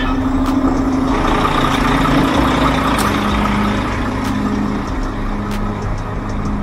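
Garbage truck's diesel engine idling steadily.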